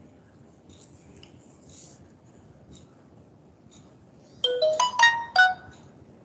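A short electronic notification jingle of a few quick bright notes, about a second long, from a phone or computer, starting about four seconds in over faint room hiss.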